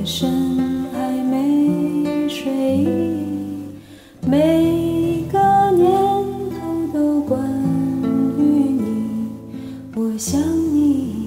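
A slow Mandarin love ballad: a singing voice over acoustic guitar.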